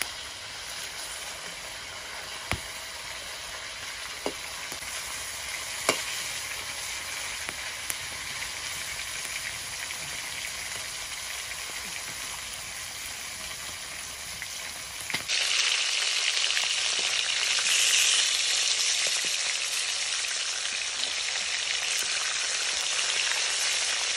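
Snakehead (sol) fish steaks sizzling in oil in a steel wok, with a few light clicks in the first half. The sizzling turns suddenly louder about 15 seconds in.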